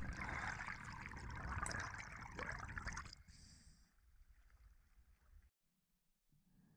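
Muffled rushing water noise picked up by a camera underwater, cutting off about three seconds in to near silence.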